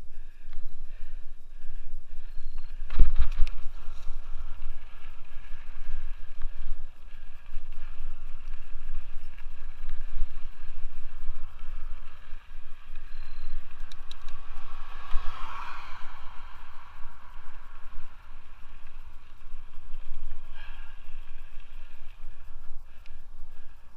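Wind buffeting a helmet-mounted camera's microphone over the tyre noise of a Scott Aspect 770 mountain bike rolling down a dirt trail and onto pavement. A sharp clatter about three seconds in, and a swelling rush of noise around the middle.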